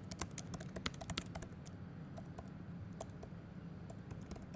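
Typing on a computer keyboard: irregular, quick key clicks as a sentence is typed, thickest in the first second or so and thinning out after.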